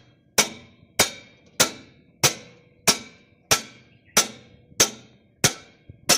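Hammer blows on a spanner fitted to a seized tractor wheel nut, about ten sharp metallic strikes at an even pace of roughly three every two seconds, each ringing briefly. The nut is too tight to turn by hand and is being knocked loose.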